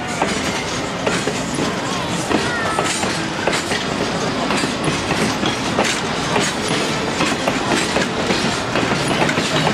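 Passenger coaches and a caboose rolling past on the track, their wheels clicking and clacking over the rail joints, with a few short squeals from the wheels.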